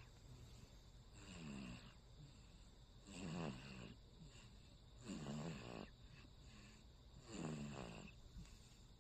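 A 51-day-old baby snoring in its sleep: four snores about two seconds apart, each lasting under a second.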